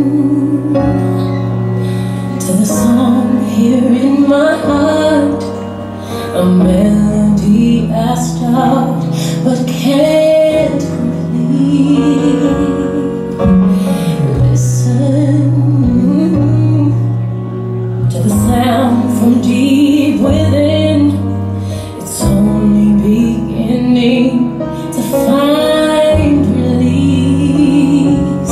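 A song with a woman singing a wavering melody over held chords and a bass line.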